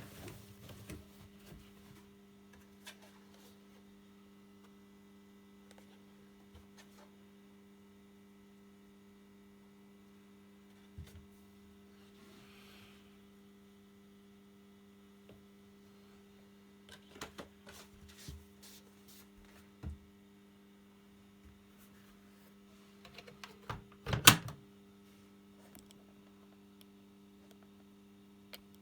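AEG LS60840L washing machine giving a steady low electrical hum, with scattered clicks and knocks and one sharper knock about 24 seconds in.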